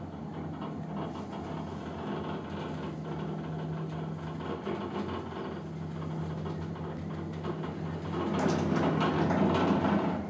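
Gondola lift cabin running along its cable with a steady low hum. About eight seconds in a louder, rattling rumble builds as the cabin passes over a pylon's sheave rollers, and it drops away near the end.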